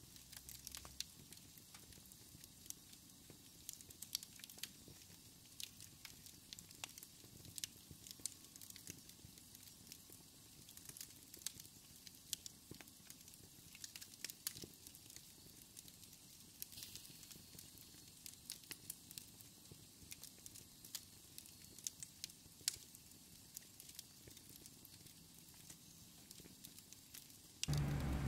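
Faint crackling of a wood fire in a fireplace: scattered soft pops and snaps over a light hiss. Near the end a louder low hum comes in.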